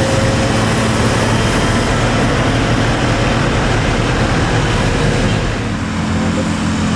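The diesel engine of a heavy, loaded cargo truck running as it drives close past, with dense road and tyre noise. About five and a half seconds in the sound dips and a steadier engine hum takes over.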